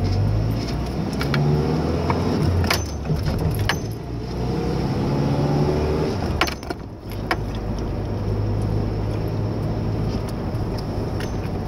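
A five-speed manual Ford pickup's engine heard from inside the cab, rising in pitch twice as it accelerates through the gears, with a short drop in the engine sound at a gear change about seven seconds in, then a steady drone. A few light clicks and rattles sound over it.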